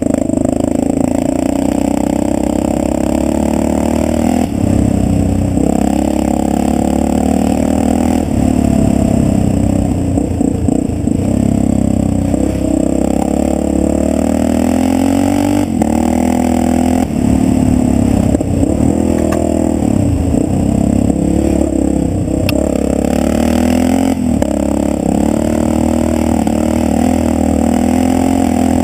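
Yamaha XT600's single-cylinder four-stroke engine running hard under load, its revs rising and falling as the throttle opens and closes and gears change, with a few knocks and rattles from the bike over the rough gravel track.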